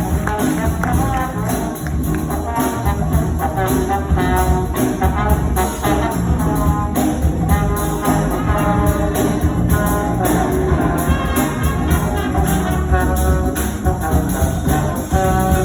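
High school big band playing jazz live: trumpets and trombones play ensemble lines over drums and bass.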